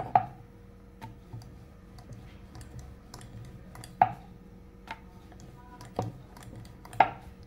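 Wooden rolling pin working naan dough on a wooden board: four sharp wooden knocks spread through, with fainter ticks between.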